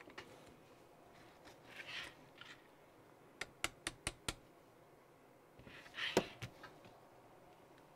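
Light handling noises of an RC car's plastic chassis being turned over by hand: soft rustles, a quick run of about five small clicks around the middle, and a knock a couple of seconds later.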